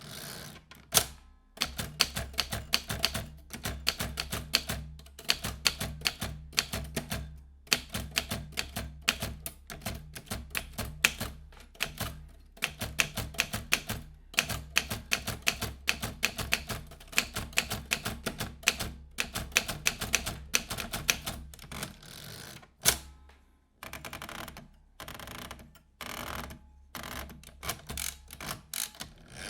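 Vintage manual typewriter being typed on: fast runs of sharp key strikes, several a second, broken by short pauses, with one louder stroke about three quarters of the way through.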